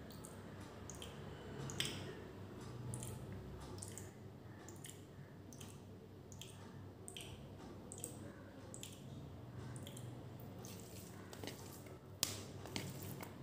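Close-up wet eating sounds: fingers squishing and mixing pulao rice with beef curry on a steel plate, along with chewing. The sounds come as many short irregular clicks and smacks, with a few sharper ones near the end.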